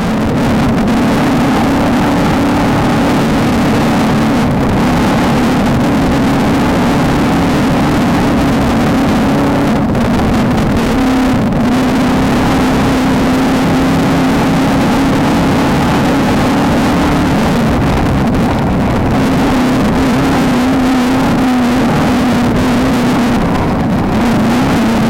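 Off-road race vehicle engine running hard at a steady, high pace. Its pitch wavers slightly over a constant loud rush of wind and terrain noise.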